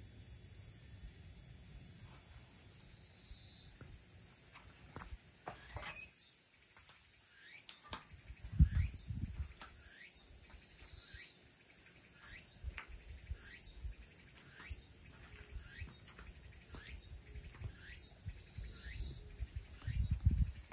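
Insects chirping outdoors: a steady high trill with a short chirp repeating a little faster than once a second. A few low thuds sound over it, the loudest about nine seconds in and another near the end.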